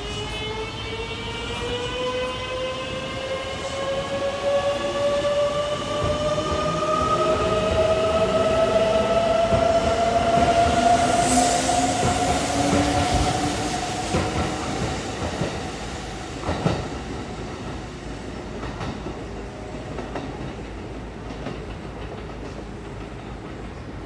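Kintetsu 23000-series Ise-Shima Liner pulling out, its Mitsubishi GTO VVVF inverter whining in several tones that rise steadily in pitch as the train accelerates. Wheels clatter over rail joints as the cars pass. The sound is loudest midway, then fades as the train leaves.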